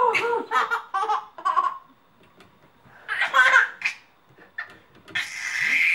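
Baby laughing in short, high-pitched bursts, a lull, then another burst, and a longer laugh building near the end.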